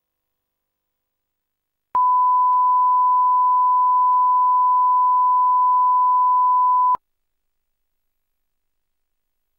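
A steady 1 kHz line-up test tone, the reference tone that goes with colour bars, starting abruptly about two seconds in, holding one pitch for about five seconds and cutting off abruptly.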